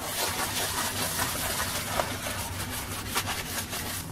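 A cloth wiping and scrubbing across a granite kitchen countertop: a steady rubbing hiss broken by small scratchy strokes.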